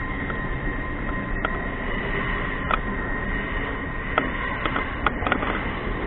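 Railway station background noise: a steady rumble and hiss with a constant hum, broken by a few scattered short clicks.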